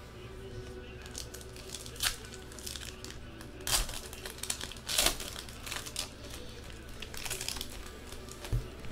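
Foil trading-card pack wrapper being torn open and crinkled by hand, in irregular crackles, the loudest a little under halfway through and about halfway through.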